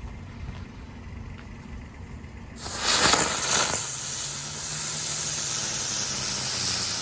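Ground bloom flower fireworks catching about two and a half seconds in and spinning with a loud, steady hiss, strongest in the first second.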